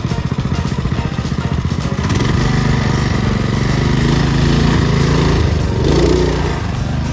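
A small engine running with a fast, even chugging, then picking up and running louder and smoother from about two seconds in.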